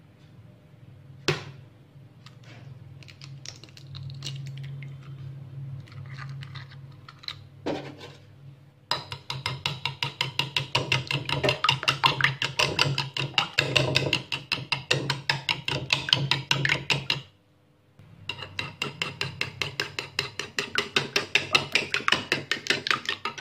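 Duck eggs being beaten with a metal spoon in a ceramic bowl: fast, rhythmic clinking of the spoon against the bowl, several strokes a second, starting about nine seconds in and pausing for about a second about seventeen seconds in. Before that, a single sharp knock about a second in and quieter handling sounds.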